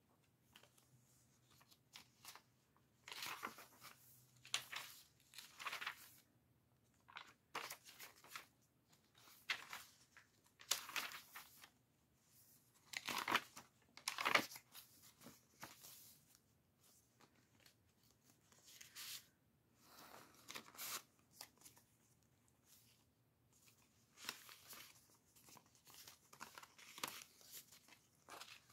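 Paper pages of a handmade junk journal being turned and handled, giving faint, irregular rustles and crinkles of stiff, aged paper, with the loudest rustles about halfway through.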